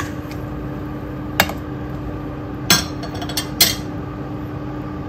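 Sharp clinks and knocks of metal and glass cookware against a stainless steel cooking pot: four or five separate strikes spaced out over a few seconds, over a steady low hum.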